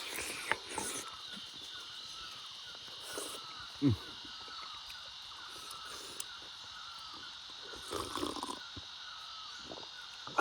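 Rural outdoor ambience over a steady high-pitched drone, with crows cawing and other birds calling now and then. A short falling-pitched call stands out about four seconds in.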